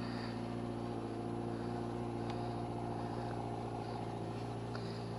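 Kawasaki ZX-6R's inline four-cylinder engine idling steadily while it warms up.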